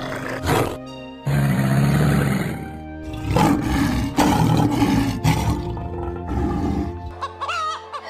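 Animal calls over steady background music: a crocodile's low growl, then a lion roaring in a series of pulsing grunts, and hens beginning to cluck near the end.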